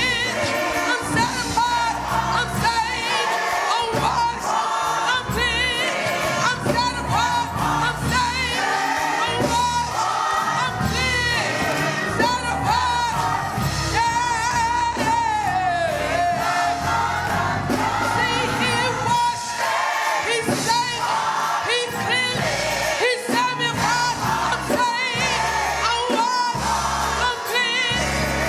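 Singing with instrumental accompaniment, a lead voice with a wide vibrato over steady low backing, typical of church music.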